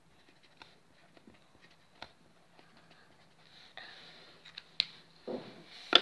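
Quiet desk handling sounds: small clicks and taps and a short rustle of paper as a sticky note and a marker are handled, with a louder knock at the very end.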